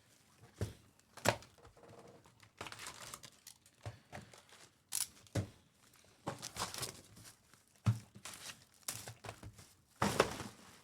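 Foil packs of 2024 Panini Donruss baseball cards being torn open and their wrappers crinkled, in irregular rustling bursts with a few sharp knocks of cards and cardboard on the table.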